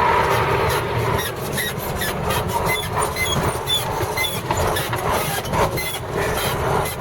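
KAMAZ fuel tanker truck driving: steady diesel engine and road noise, with frequent small knocks and rattles and short high squeaks.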